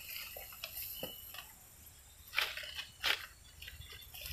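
Wet cast net being handled and sorted, giving a few soft drips and clicks over a steady high hiss.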